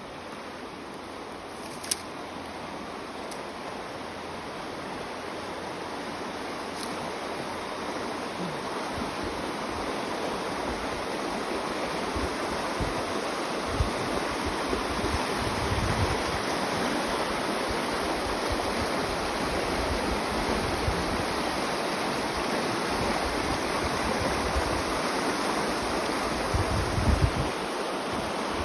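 Spring water rushing out of its outflow, a steady wash of flowing water that grows gradually louder, with a few low thumps near the end.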